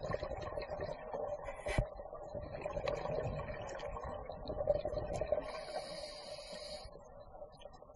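Underwater sound picked up through a camera housing: scuba divers' exhaled regulator bubbles gurgling, with scattered clicks and a sharp click about two seconds in. A short hiss comes in near the end.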